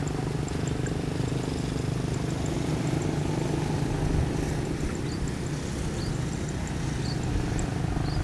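An engine running steadily with an even low hum, and faint short high chirps over it.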